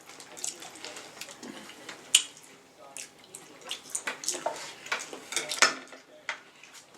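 King crab leg shells cracking and snapping as they are broken open, a run of irregular sharp clicks and cracks with wet, saucy handling noises; the loudest cracks come about two seconds in and again past five seconds.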